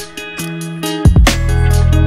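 Background music with plucked, guitar-like notes. A deep bass drops out for the first second, then comes back with a falling bass hit about a second in.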